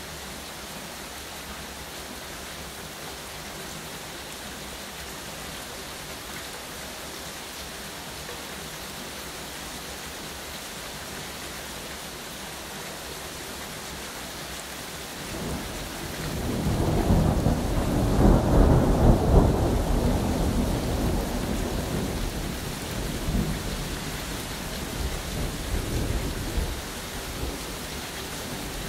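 Steady rain falling, with a long roll of thunder rising about halfway through. The thunder is loudest for a few seconds, then rumbles away unevenly over about ten seconds.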